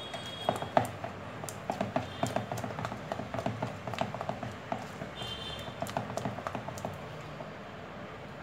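A hand beating semi-thick maida-and-curd batter in a bowl: a quick, irregular run of soft slaps and taps that eases off shortly before the end.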